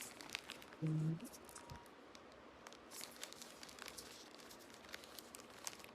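Plastic biscuit wrapper crinkling and crackling as it is handled and torn open, with a brief low hum about a second in.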